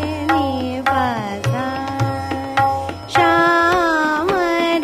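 Hindustani classical vocal music in Raag Hamsadhwani: a singer holds and glides between notes, with tabla strokes underneath. The phrase dips briefly about three seconds in, then comes back louder.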